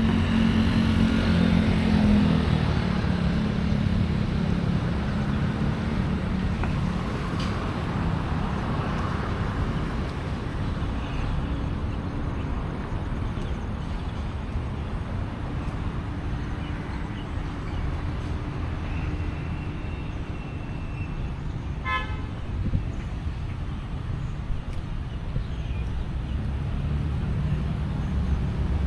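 Busy road traffic: vehicle engines running and passing, loudest in the first few seconds, with a short high-pitched beep about two-thirds of the way through.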